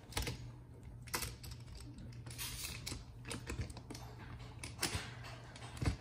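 Irregular small clicks and light metallic taps as a paintless-dent-repair bridge puller is handled and positioned against a stainless steel fridge door.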